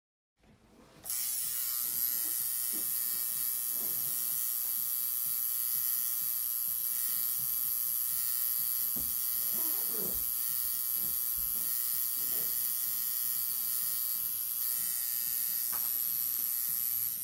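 Tattoo machine buzzing steadily. It starts about a second in and holds an even pitch throughout.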